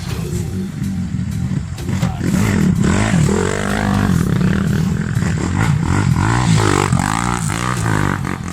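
Motor vehicle engine running hard and revving, its pitch rising and falling again and again, loudest in the middle.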